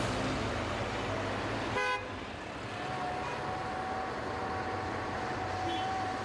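Road traffic with a lorry driving past, and a short horn toot just under two seconds in. After it comes a steady traffic rumble with a faint steady tone held under it.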